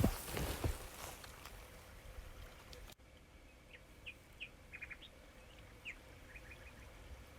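A few dull thumps in the first second, then the sound drops abruptly. After that, a small bird chirps a scattered string of short high notes, some in quick runs of three, over faint outdoor ambience.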